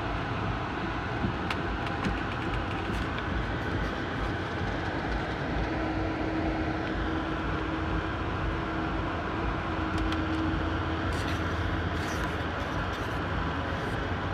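Steady rumble and rattle of an Amtrak Superliner sleeping car riding along the track, heard from inside the compartment. A faint steady tone sits over it for several seconds in the middle, with scattered light clicks, most of them near the end.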